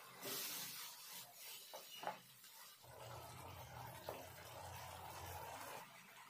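Onion-tomato masala thinned with water, sizzling and bubbling in a frying pan. A wooden spatula stirs and knocks against the pan a couple of times about two seconds in, followed by a steadier simmer.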